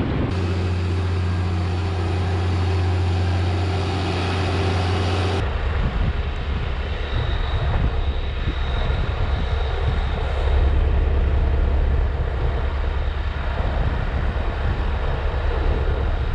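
A steady engine drone. About five seconds in it changes abruptly to a different steady low rumble.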